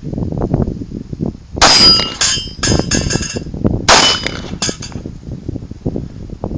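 Glock 19 9 mm pistol shots in two quick clusters, the first starting about a second and a half in and the second near four seconds. The loudest reports carry a metallic clanging ring.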